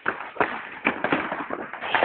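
Fireworks going off: an irregular string of sharp pops and bangs, running into a dense crackle near the end.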